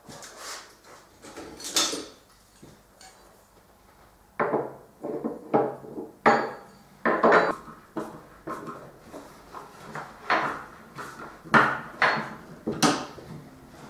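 Metal cabinet hardware and hand tools clinking and knocking on wood, a string of irregular sharp clanks. It starts sparse and gets busier after about four seconds.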